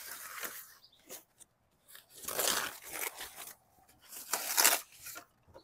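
A cardboard box of plastic hubcaps being opened and a wheel cover slid out of it: crunching, scraping cardboard and plastic in three stretches.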